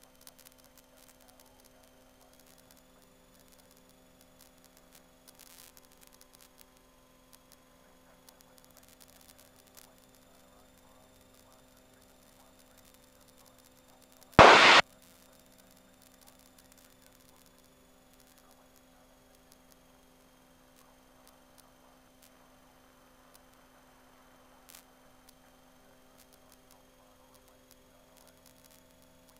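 Steady faint electrical hum on an aircraft intercom and radio feed, with one short, loud burst of noise about halfway through.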